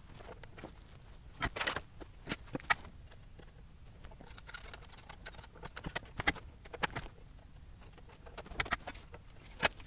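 Irregular small clicks and taps of hand tools, pliers and a soldering iron, working on a metal amplifier chassis during a capacitor replacement. There are small clusters about one and a half seconds in, around six to seven seconds, and near the end.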